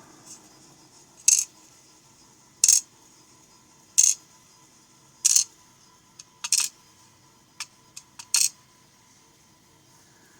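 Sharp metallic clicks and clinks of small lock parts being knocked or dropped onto a hard surface while a picked pin-tumbler lock is gutted. There are four evenly spaced taps about a second and a half apart, then a quicker cluster of clicks near the end.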